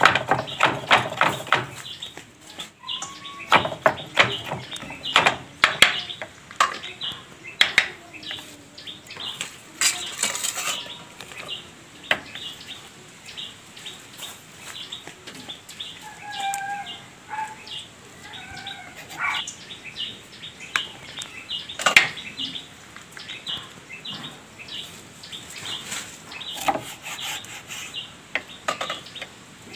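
Kitchen knife chopping on a wooden cutting board: a fast run of chops at the start, then scattered knocks of the blade on the board as food and a lime are cut.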